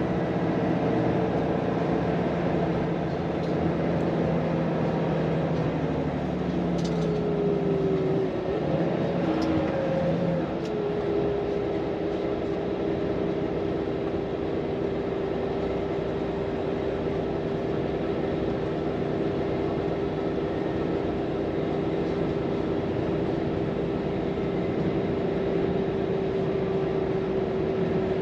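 Volvo FM truck's diesel engine and road noise while driving, heard from the cab. The engine tone sinks over about the first ten seconds, then holds a steady hum.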